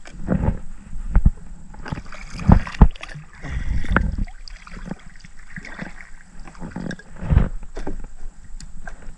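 Irregular knocks and bumps of a paddle and fishing rod against a kayak hull, with water splashing and sloshing around the boat. The two sharpest knocks come close together a little before the middle.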